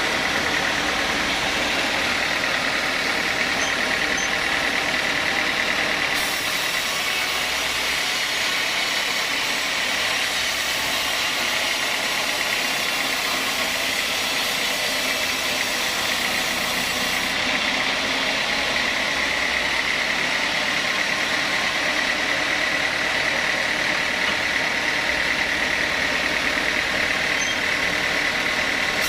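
Sawmill saw machinery running steadily with a high whine. A brighter hiss joins for about ten seconds in the middle, then drops away.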